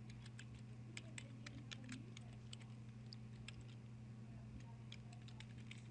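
Computer keyboard being typed on: a scattering of faint, irregular key clicks over a steady low electrical hum.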